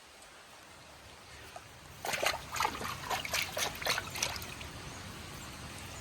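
Water splashing in a quick run of small splashes and drips, starting about two seconds in and lasting about two seconds.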